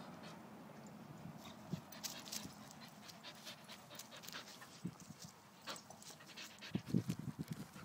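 A dog panting, with scattered light clicks and a quicker run of short breaths near the end.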